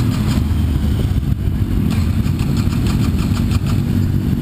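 Harley-Davidson motorcycle engine with a steady low rumble, with two stretches of rapid, even pulses at about seven a second, as the bike struggles to start.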